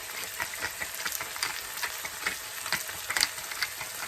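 Onion, garlic, chilies and paprika frying in olive oil in a pan: a steady sizzle with irregular crackles and pops, the sharpest a little after three seconds in.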